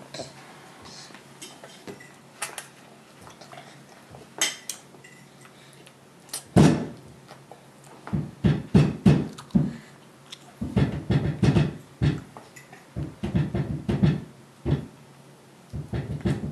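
A baby's hands slapping and banging on a high-chair tray: light clicks of food being picked at first, then one loud bang about six seconds in and several bursts of rapid knocks.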